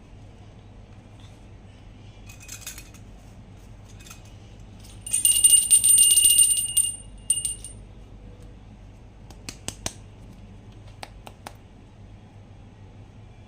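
Toys being handled, with scattered light clicks. About five seconds in there is a loud rattling jingle with steady high ringing tones that lasts about two seconds.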